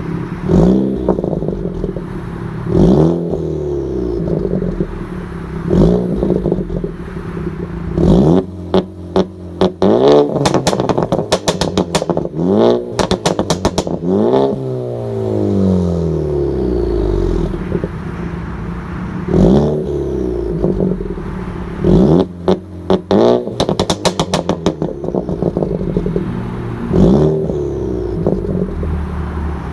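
Ford Focus Mk3 ST's turbocharged 2.0-litre four-cylinder engine being revved about eight times. As the revs fall away, the exhaust gives bursts of rapid crackles and pops, the overrun crackle map of a Stratified tune.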